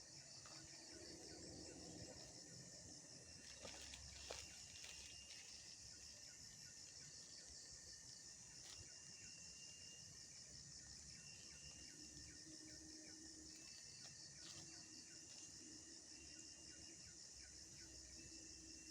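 A faint, steady chorus of insects chirping in rapid even pulses, with a few soft clicks.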